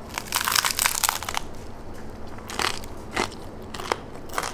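A bite into a vampiro taco's crisp, fire-grilled tortilla: a dense crackling crunch for the first second or so, then four single crunches of chewing.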